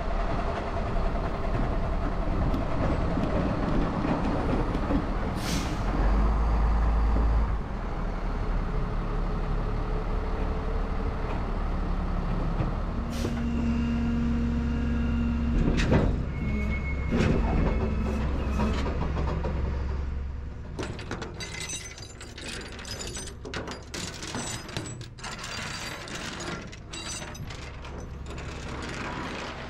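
Rollback tow truck running while its hydraulic bed tilts and slides down to the ground, with a steady whining tone near the middle. After about two-thirds of the way, the engine drops back and a scatter of sharp clicks and clanks follows.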